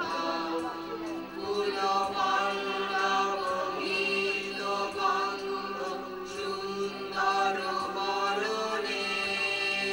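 A group of voices singing together unaccompanied, holding long sustained notes, over a steady low drone.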